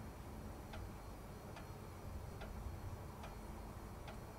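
Slow, steady ticking, a little more than one tick a second, over a faint low hum.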